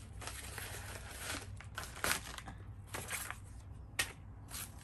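Yellow padded mailer envelope being pulled open and handled, with irregular crinkling and rustling and a sharper click about four seconds in.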